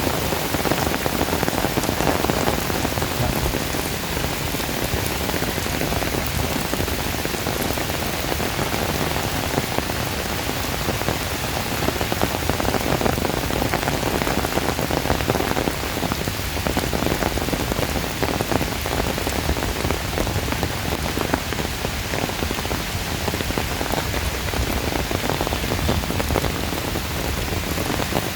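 Heavy tropical downpour pattering steadily on hard surfaces, a dense unbroken rush of rain.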